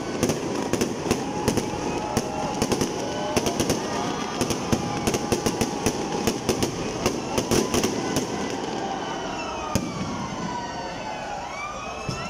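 Aerial fireworks display: shells bursting in a rapid run of sharp bangs and crackles over a continuous rumble, with rising and falling whistles. The bangs thin out after about eight seconds, leaving mostly the rumble and the whistles, with a single loud crack near the ten-second mark.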